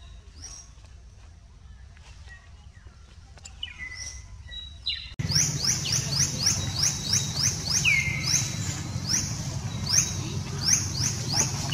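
Birds chirping: a few faint high calls at first, then, about five seconds in, a sudden much louder run of quick, repeated rising chirps, roughly two a second, with an occasional lower falling whistle, over a low steady hum.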